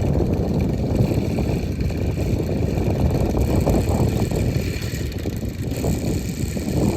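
Strong wind buffeting the microphone: a heavy, fluctuating low rumble that rises and falls with the gusts.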